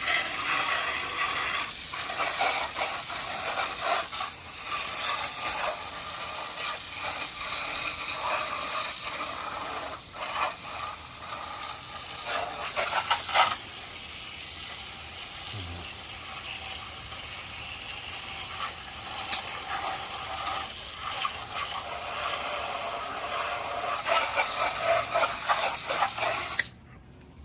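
Water hissing and splashing steadily, with scattered rattles and clicks, as muddy plastic taillights are rinsed; it cuts in and cuts off abruptly.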